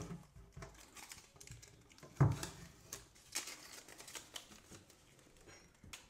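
Quiet handling noises: blue painter's tape being crumpled in the hand against a painted wooden cabinet door, with light rustles and scattered clicks and one sharper knock about two seconds in.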